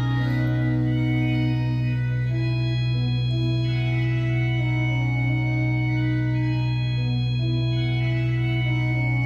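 Organ music, slow and sustained: one low bass note held throughout under chords whose upper notes change every second or two.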